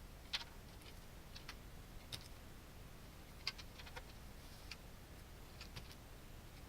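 A few faint, irregular clicks of a hand tool working on the end of a black electrical wire, stripping off its insulation.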